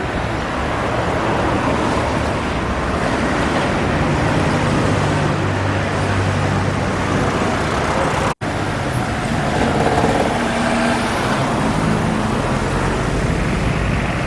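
Road traffic: vehicle engines running over steady road noise, with a brief complete dropout a little past eight seconds in.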